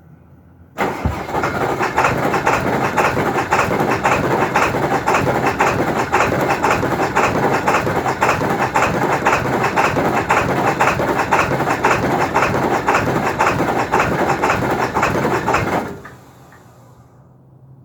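2002 Ford F-350's 7.3 L Power Stroke V8 diesel cranking on the starter with a fast, even beat for about fifteen seconds, then the starter cuts off. This is a hard start, which the owner puts down to a bad glow plug relay.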